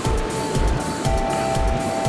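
Music with a steady low beat under held melody notes.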